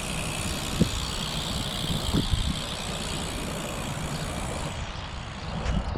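Road traffic noise: a steady rumble and hiss of a passing motor vehicle that fades near the end, with a couple of short knocks.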